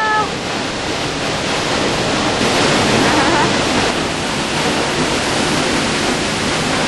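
A nearby waterfall rushing, a loud, steady wash of falling water.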